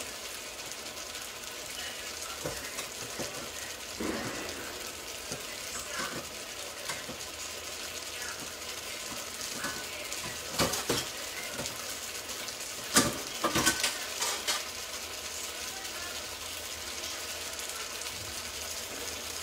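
Fish pieces in tomato sauce sizzling in a frying pan on high heat, a steady hiss, with a few sharp clicks and knocks about halfway through.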